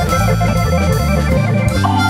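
Instrumental background music, an organ-like keyboard playing over a moving bass line.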